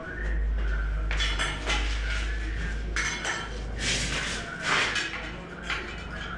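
An aluminium spirit level and a tile clattering and scraping against a plastered wall as they are set in place, in several short bursts.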